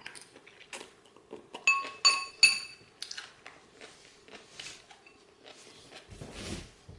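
Metal fork clinking against a ceramic salad bowl, three ringing clinks close together about two seconds in, with soft chewing clicks around them.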